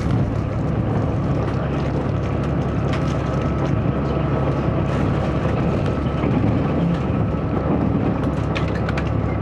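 Steady running noise inside a DR3000 diesel railcar under way: a low engine drone under the rumble of wheels on rail, with a few light clicks near the end.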